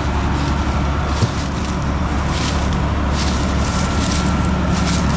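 Combine harvester running steadily, a constant low engine hum with machinery noise over it, and a single knock about a second in.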